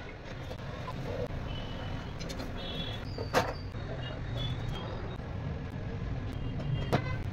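Two sharp metal clinks of kitchen utensils, about three and a half and seven seconds in, over a steady low rumble.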